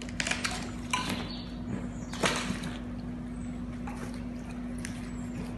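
Canal water splashing and dripping in several short bursts as a catch of wet leaves and branches is lifted out of the canal.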